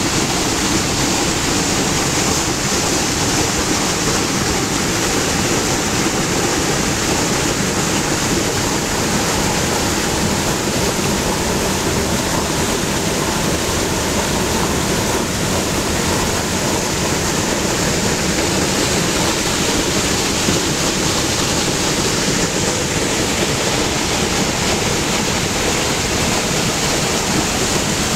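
Water discharging at the lower end of a dam, churning in heavy turbulence: a loud, steady rush that does not let up.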